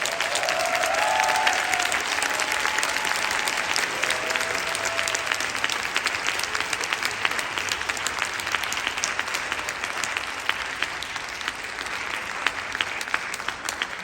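Audience applauding. In the second half the clapping thins, so single claps stand out.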